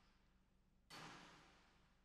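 Near silence, with one faint sudden sound about a second in that fades away over about a second.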